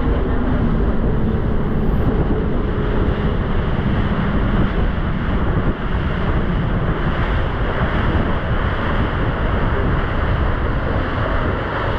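A boat under way: a steady rush of engine and water, with heavy wind buffeting the microphone.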